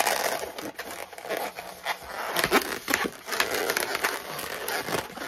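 Inflated white latex modelling balloon rubbing and crackling under the hands as it is twisted into bubbles, with a few sharp snaps.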